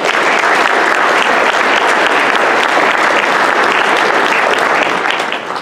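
Audience applauding at the end of a talk, a steady clapping that starts right away and tapers off near the end.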